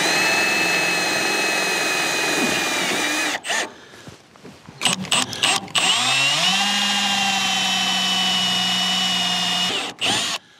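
Cordless drill driving screws into the steel shed frame and cladding, in two long runs: the first stops about a third of the way in, and after a few clicks and knocks the second starts, rises in pitch as the motor speeds up, holds steady and stops near the end.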